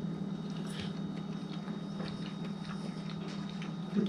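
Quiet eating: faint small clicks and chewing over a steady low hum, with a brief louder low sound near the end.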